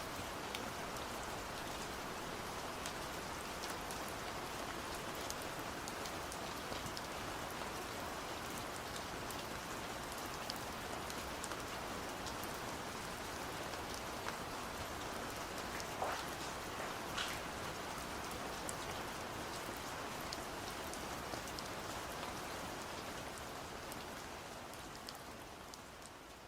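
Steady autumn rain falling on a surface, with many separate drops ticking through it and a couple of louder drips about two-thirds of the way through. It fades out near the end.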